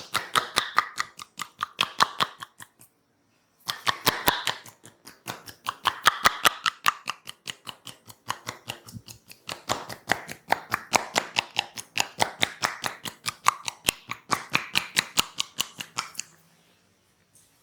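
Rapid hand-tapping massage strokes: crisp slaps and snaps about five or six a second, in runs with a short pause about three seconds in, stopping shortly before the end.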